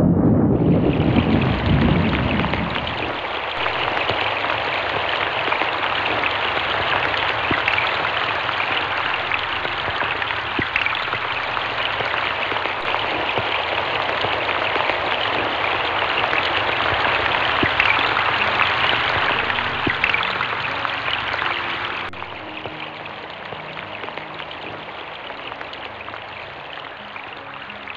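Heavy, steady rain pattering on a pond and the forest floor, with a low rumble of thunder dying away in the first couple of seconds. About 22 s in the rain becomes quieter.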